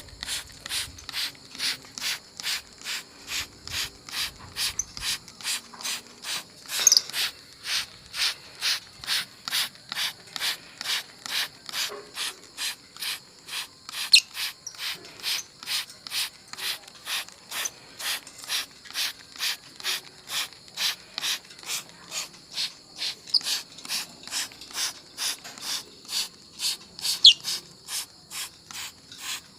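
Hand pump spray bottle misting water onto a lovebird for its bath: short hissing squirts, about two a second, with a few brief sharper sounds among them.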